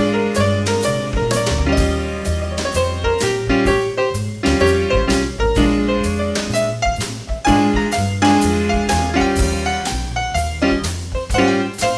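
Live instrumental jazz: piano chords over a walking bass line, with light percussion strikes marking the beat.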